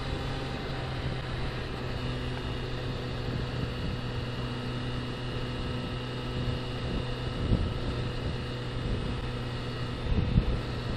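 Suzuki Bandit's inline-four engine running steadily at highway cruising speed, with wind rushing over a helmet-mounted microphone. The wind buffets louder twice near the end.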